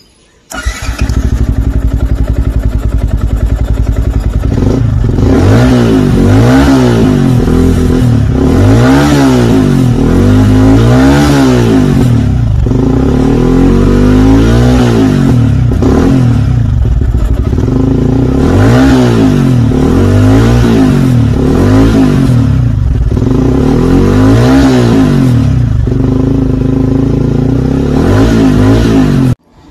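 155cc single-cylinder motorcycle engine running, revved over and over from about five seconds in, each throttle blip rising and falling in pitch; the sound cuts off suddenly near the end.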